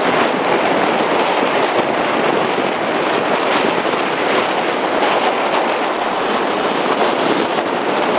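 A river in flood after heavy typhoon rain, running at about three times its usual volume: a loud, steady rush of fast, turbulent water.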